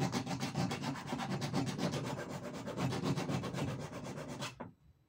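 Rapid, even back-and-forth rubbing strokes, about eight a second, from a small metal sewing-machine part being smoothed by hand with an abrasive. The part is the one suspected of snagging the thread. The strokes stop abruptly about four and a half seconds in.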